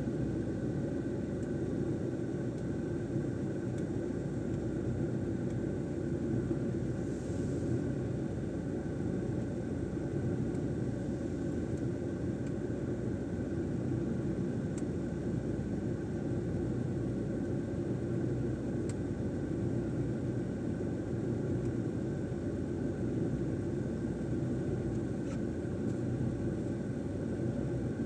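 A car being driven, with the steady low rumble of its engine and tyres on the road.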